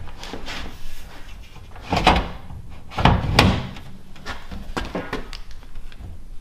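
Glass front cover of a Napoleon NLF50H electric linear fireplace being slid and pushed into place on its frame: rubbing and scraping, with sharp knocks about two seconds in and again about three seconds in.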